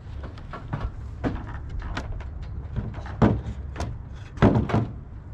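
A run of irregular knocks and thuds, with two heavy thuds about three and four and a half seconds in.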